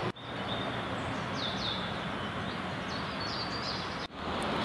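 Steady outdoor background noise with small birds chirping: a couple of short high chirps falling in pitch about a second and a half in, and a few more shortly before the end.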